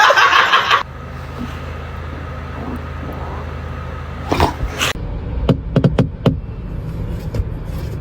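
A loud noisy sound cuts off sharply just under a second in, leaving a steady low hum. A short louder burst comes about four seconds in, followed by a quick run of sharp clicks.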